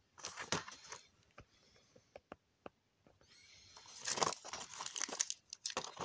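Plastic-and-foil blister packs of lozenges crinkling as they are handled and turned over, in two bursts: a short one at the start and a longer one from about three seconds in, with scattered small clicks between.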